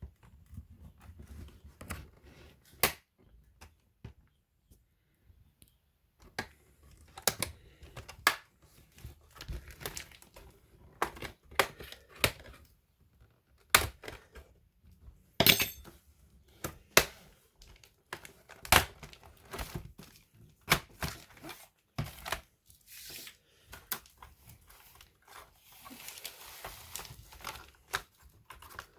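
Scattered sharp clicks and knocks of small plastic and metal laptop parts being handled and pried apart, with one loud crack about halfway through. A soft scraping rustle follows near the end.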